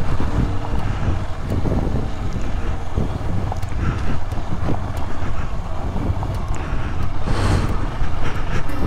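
KTM Adventure motorcycle's single-cylinder engine running steadily under way, with wind on the microphone.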